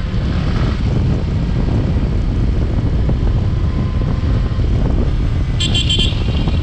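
Riding noise from a Yamaha R15 V3 motorcycle under way: a loud, steady rush with wind buffeting the microphone and the engine running beneath it. Near the end comes a quick run of four or five short high beeps.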